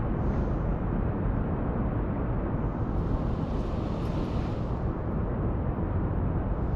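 Steady noise of a rainstorm, with wind rumbling on the microphone and a hiss of rain that swells briefly about halfway through.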